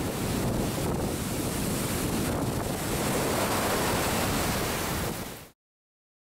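Steady rush of ocean surf with wind buffeting the microphone; it cuts off suddenly about five and a half seconds in.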